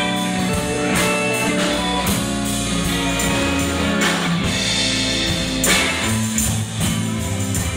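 Live rock band playing an instrumental stretch with no vocals: electric guitars, bass guitar and drum kit.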